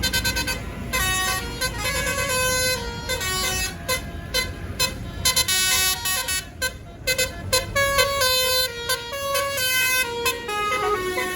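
Tour bus's basuri telolet horn playing a tune: a quick run of short horn notes stepping up and down in pitch several times a second, with brief gaps between phrases, over a low rumble.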